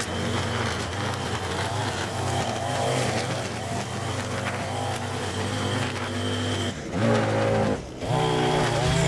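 String trimmer running at speed with a high whine, its motor revving up about seven seconds in and dropping off briefly near the end.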